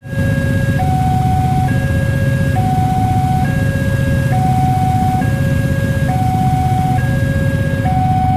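Railway level-crossing warning siren, a new electronic type, sounding a two-tone hi-lo alternation that switches pitch about every nine-tenths of a second, over a steady low rumble.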